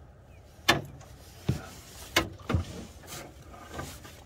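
A string of about six irregular knocks and thumps, the loudest about a second in.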